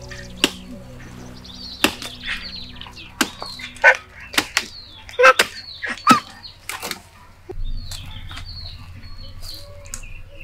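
Chopping with a blade, about a dozen sharp, irregular strikes over several seconds, with birds chirping in the background.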